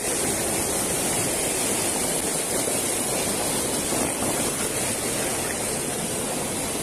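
Shallow rocky stream rushing steadily over stones.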